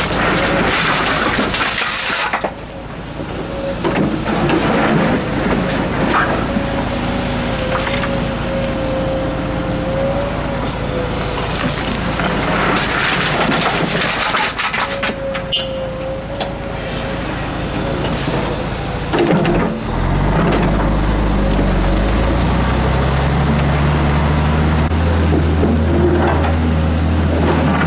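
Komatsu PC230-11 hydraulic excavator at work, its diesel engine and hydraulics running with a steady whine. Twice, rock and soil crash and rattle out of the bucket into a steel dump-truck bed. About twenty seconds in, the machine's drone turns deeper and heavier as it digs.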